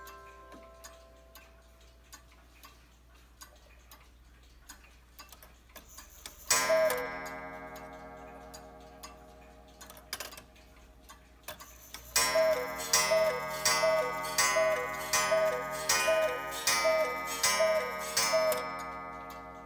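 Cuckoo clock ticking. About six seconds in it gives a single cuckoo call with a gong strike that rings out. Later it gives a run of about nine cuckoo calls, each with a gong strike, a little under a second apart, sounding nine o'clock.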